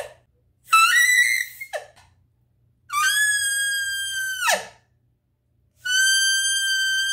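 Cow elk calls blown on a mouth diaphragm elk call: three high calls, each sliding from high to low. The first is short and wavering; the next two are held steady for about a second and a half, then drop sharply in pitch at the end.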